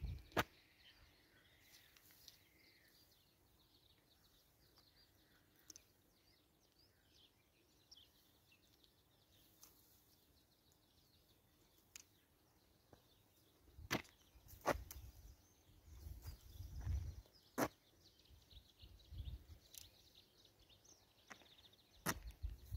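Green grass stalks being snapped off by hand: irregular sharp snaps scattered through quiet outdoor air, with a few low rumbles of wind or handling on the microphone.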